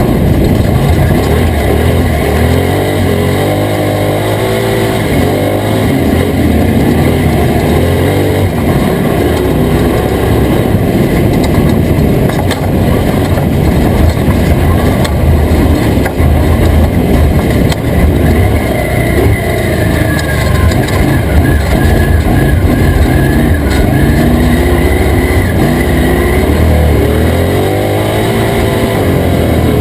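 Toyota Tacoma prerunner race truck's engine running hard, its revs rising and falling again and again, over a constant rough noise with many short knocks.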